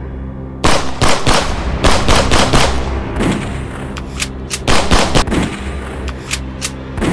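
Gunfire sound effects: rapid bursts of sharp shots, in clusters with short gaps, laid over a steady background music track.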